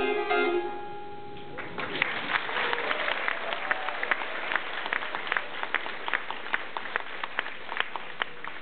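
The last plucked notes of a đàn tranh (Vietnamese zither) ring out and fade. About a second and a half in, audience applause begins and carries on, with single sharp claps standing out of the steady clapping.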